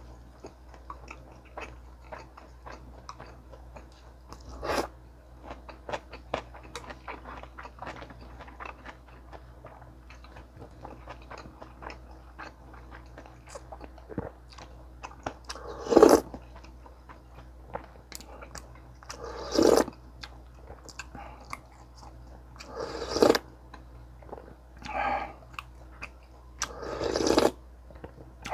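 Close-miked mouth sounds of eating sundae gukbap with kimchi and kkakdugi: steady wet chewing with many small clicks, broken by about six louder bites spread through the stretch.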